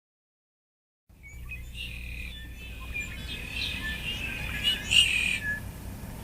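Songbirds chirping and calling over a steady low rumble of breeze, starting suddenly about a second in after silence; a stock outdoor country ambience sound effect.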